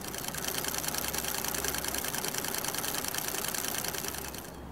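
A fast, even mechanical clatter, like a small machine ticking over many times a second, over a low steady hum. It starts at once and fades out near the end.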